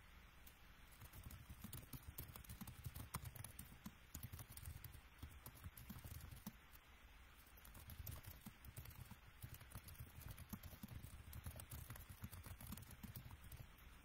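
Faint typing on a computer keyboard: irregular soft clicks and low thumps, starting up about a second in, pausing briefly around the middle, then resuming.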